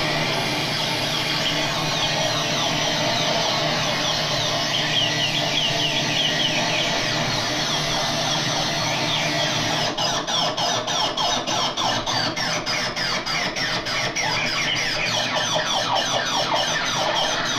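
Homemade dub-siren-style twin oscillator played through effects pedals: a dense, high electronic tone full of short falling sweeps, which breaks into a fast, even pulsing about ten seconds in.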